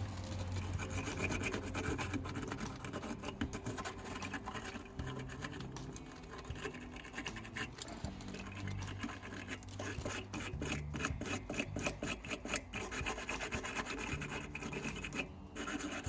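Scrubbing and scraping strokes on a battery cable terminal, cleaning off corrosion. The strokes quicken into an even back-and-forth about ten seconds in.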